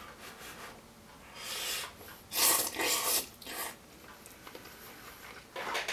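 A person slurping instant noodles from a cup with chopsticks: a few noisy, airy slurps between about one and a half and four seconds in, the loudest about two and a half seconds in.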